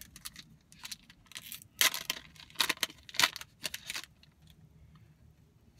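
Foil wrapper of a Pokémon card booster pack crinkling and tearing as it is opened, in a string of sharp crackling bursts that are loudest about two to four seconds in and then die down.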